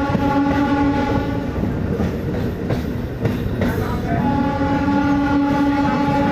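Indian Railways MEMU train's horn sounding two long steady blasts, the first at the start and the second from about four seconds in, over the running rumble of the moving train.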